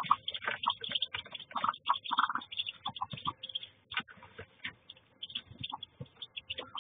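Newly hatched ducklings peeping in the nest: many short high calls in quick succession, thinning out about halfway through.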